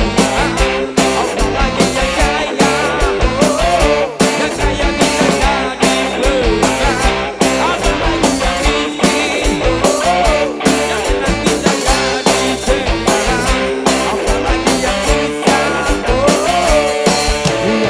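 Live band playing with electric guitars, bass guitar, keyboard and drums, over a steady driving beat.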